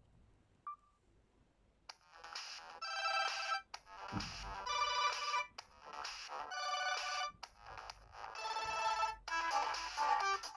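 Samsung GT-S5610K phone ringtone: after about two seconds of near silence, an electronic melody starts, playing short, bright phrases with brief gaps between them and growing busier near the end.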